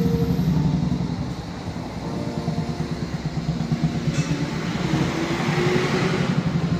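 Vehicle engines running close by: a steady low drone, with a rush of noise that swells from about four seconds in.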